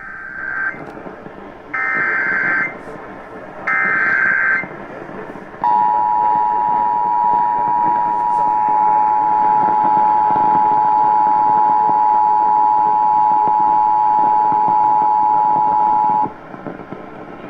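Emergency Alert System alert on a radio broadcast: three short bursts of screechy SAME digital header tones about two seconds apart, then the EAS two-tone attention signal, a steady dual tone held for about ten seconds before cutting off, announcing an emergency alert. A haze of radio hiss runs under it.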